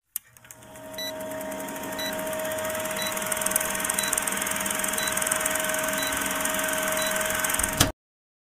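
Old film projector sound effect for a countdown leader: the projector runs with a steady whir and clatter, with a short faint beep once a second. It ends in a sharp click and stops suddenly.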